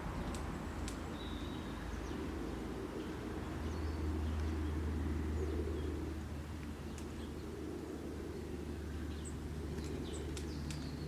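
Outdoor ambience: scattered faint, short bird chirps over a steady low hum.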